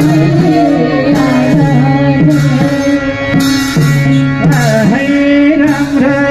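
Live Nepali Deusi Bhailo folk music: harmonium chords held under a bansuri flute melody, with sung vocals, amplified through a microphone. A high percussive accent marks the beat about once a second.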